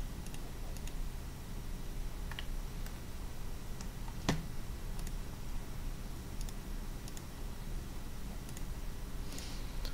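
Scattered single clicks at a computer, the sharpest about four seconds in, over a steady low hum.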